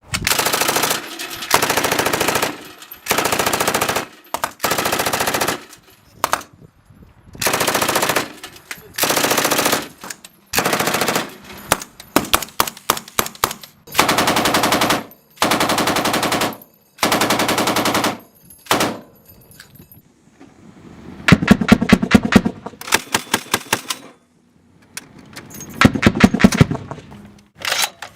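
Automatic machine-gun fire in about a dozen short bursts of roughly a second each, separated by brief pauses. After a short lull, two longer volleys of more widely spaced, heavier-sounding shots.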